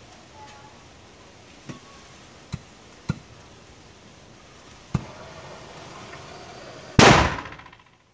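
Homemade carbide cannon firing with one loud bang about seven seconds in, the acetylene charge going off; the bang dies away over about a second. Before it come several sharp clicks and a faint steady hiss.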